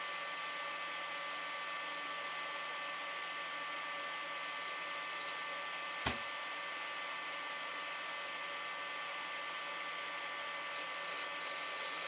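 Old desktop PC starting up with its case open: cooling fans and drives give a steady whirring hiss with a few faint steady whines, and a single sharp click about six seconds in.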